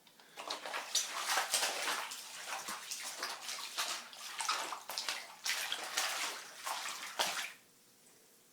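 Floodwater on a basement floor sloshing and splashing in irregular bursts, then stopping suddenly about seven and a half seconds in.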